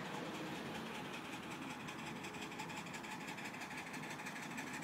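Ride-on miniature railway train running along its track with a quick, even mechanical rattle.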